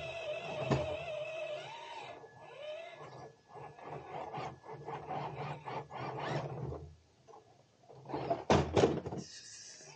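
Radio-controlled crawler truck climbing a fallen log: a wavering electric-motor whine in the first two seconds, then a run of short scrapes and rasps as its tyres claw at the bark, with two loud scrapes near the end.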